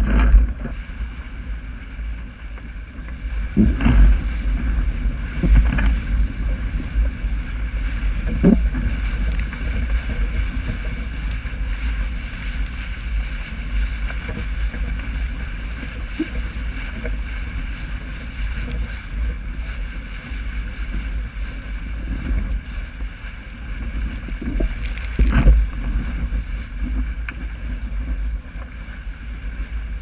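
Strong wind buffeting the camera's microphone over water rushing and spraying past the hull of a wooden Graduate sailing dinghy sailing fast through chop. There are occasional thumps as the hull slams into waves, the loudest about 4 and 25 seconds in.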